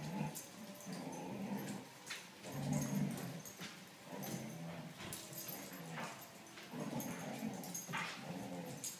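Dogs grumbling and growling in play in repeated low stretches, with a few sharp clicks from claws on a hardwood floor.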